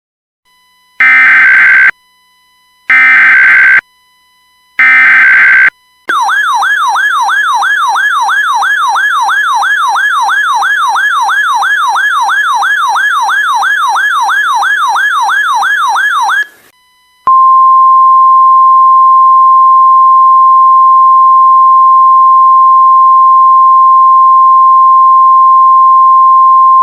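Emergency Alert System tones on NOAA Weather Radio that announce a tornado warning. Three short bursts of SAME header data come first, then a RadioShack 12-996 electronic siren wails rapidly up and down about three times a second for about ten seconds. The steady 1050 Hz warning alarm tone follows for about ten seconds.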